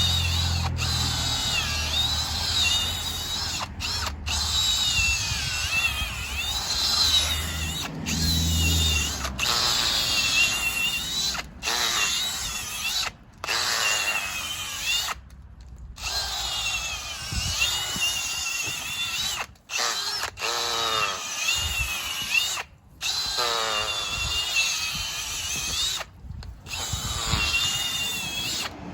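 Milwaukee M18 cordless hammer drill driving an auger bit through soil. The motor whines and wavers in pitch as the load on the auger changes. It stops briefly about a dozen times as the trigger is let off and squeezed again.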